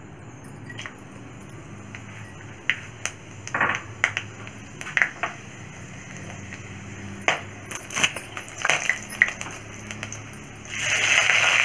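Whole spices and a spatula clinking and knocking against a thin aluminium kadai of mustard oil, a scatter of sharp taps. About a second before the end, hot oil starts sizzling loudly as spices fry.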